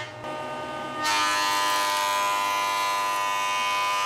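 Jointer running as a hardwood board is pushed over its cutterhead to flatten a face, giving a steady machine whine with a hissing cutting noise. The sound drops back briefly at the start, then the cutting noise returns about a second in.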